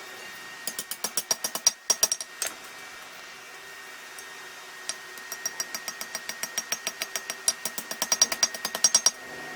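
Hand hammer striking steel on an anvil in quick runs of light blows, about six a second, each with a bright ring, as a scroll is forged on the end of a knife. A short run comes about a second in, then a few single blows, then a longer run from about five seconds until just before the end.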